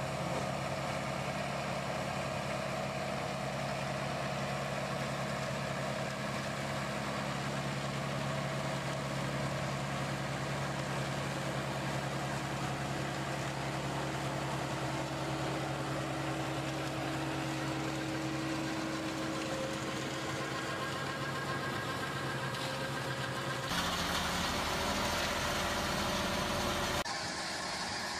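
Ferrari Cromo K40 compact tractor's engine running steadily while a rear-mounted mower cuts tall grass. Near the end the sound cuts abruptly to a different, noisier engine, then changes again.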